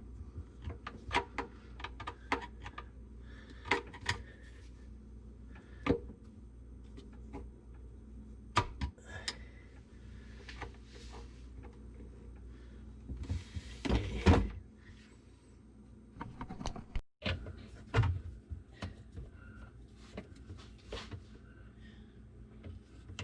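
Irregular clicks and knocks of hand tools against plastic and metal plumbing fittings as the connections on a garbage disposal are tightened, with a busier, louder spell of knocking a little past the middle.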